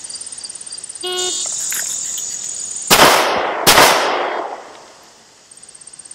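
A short beep of the start signal, then about two seconds later two pistol shots from a Smith & Wesson SW99 chambered in .40 S&W, fired a little under a second apart, each with a brief echoing tail. Insects drone steadily underneath.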